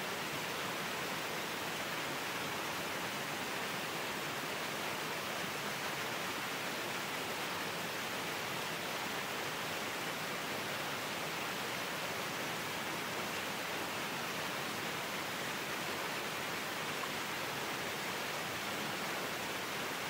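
Small waterfall rushing steadily: a narrow stream of water falling down a rock face and splashing onto the rocks below.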